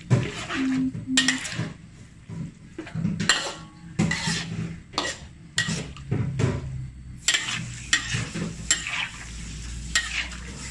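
Metal spatula scraping and clanking against a wok while stirring noodles, in irregular strokes about one or two a second, over the sizzle of the stock coming back to the boil.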